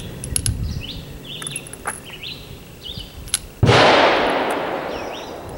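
Light metallic clicks of .44 Special cartridges going into a Smith & Wesson .44 Magnum revolver's cylinder, with birds chirping. About three and a half seconds in comes a single loud gunshot that trails off over about two seconds.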